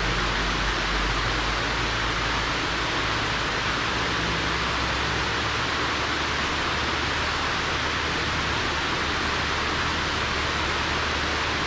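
Water pouring over the face of a concrete dam spillway into the pool below: a steady, even rush of falling water.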